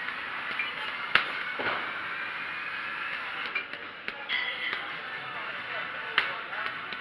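Gloved strikes landing on a hanging heavy punching bag: sharp smacks, the two loudest about a second in and near the end, with lighter hits between, over steady background music.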